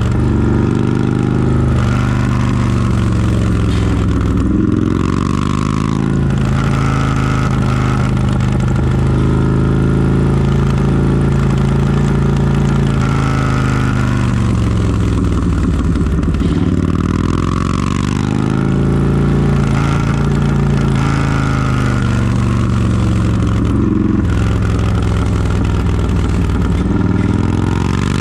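Harley-Davidson touring motorcycle's V-twin engine under way, its pitch rising and falling again and again as the throttle is rolled on and off, over a steady low tone.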